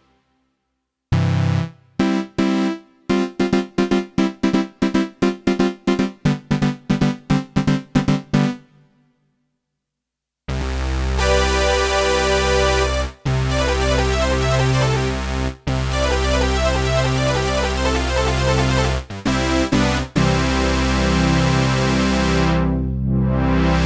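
Alesis Ion virtual-analog synthesizer playing a patch from a Nord Stage sound pack. It plays a run of quick, short keyboard notes, pauses, then plays held chords over a low bass, broken by a few short gaps.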